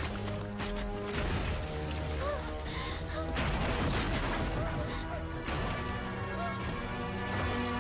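Dramatic film score with sustained held tones over a heavy low rumble, mixed with a few crashing hits from the action sound effects.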